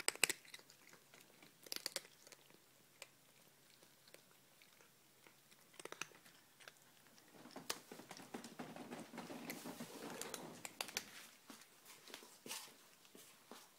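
Cats crunching dry kibble: scattered crisp crunches, thickening into steadier crunching in the second half.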